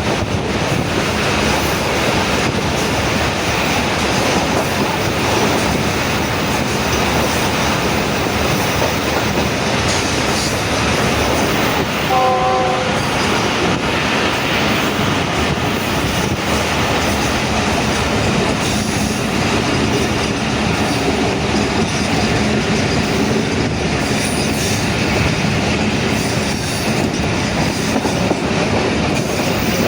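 Pakistan Railways passenger train running on the track: a steady, loud rumble and rattle of wheels and carriage. A short horn note sounds about halfway through.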